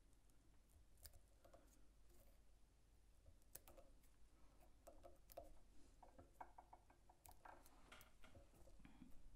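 Near silence with a few faint, scattered clicks and light handling noises from fingers working the fly and its deer hair in the vise.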